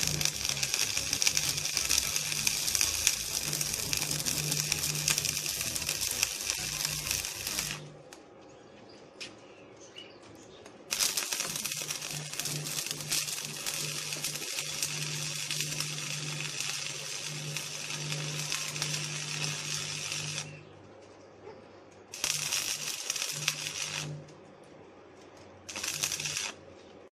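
Stick (arc) welding: the electrode crackling and sizzling as beads are laid, with a low hum under it. There is one long run of about eight seconds, a pause, another of about nine seconds, then two short bursts near the end.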